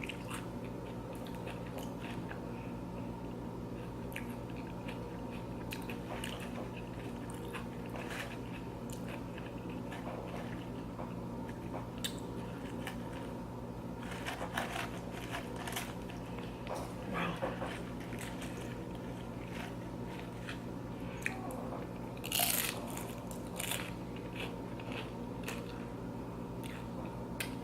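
A person biting and chewing crunchy loaded tortilla-chip nachos close to the microphone: irregular crunches and wet mouth sounds, the loudest bites about 14 and 22 seconds in.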